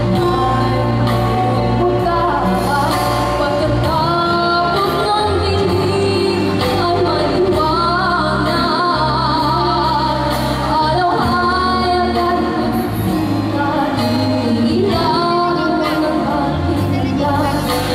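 A woman singing solo into a handheld microphone over instrumental accompaniment, amplified through a hall's PA, with vibrato on the held notes.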